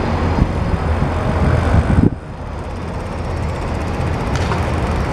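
Cars passing on a city street, with a low rumble that drops away suddenly about two seconds in, leaving steadier, quieter traffic noise.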